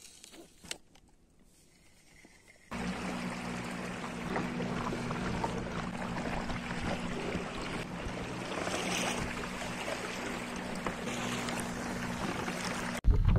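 Small boat motor running steadily with a low hum as an inflatable boat moves under way, with water washing along the hull. It comes in abruptly about three seconds in, after near quiet with a couple of soft clicks.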